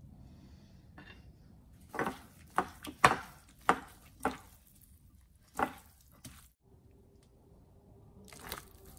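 Kitchen utensils knocking: about six sharp, irregular knocks in the middle, then a brief scraping rustle near the end.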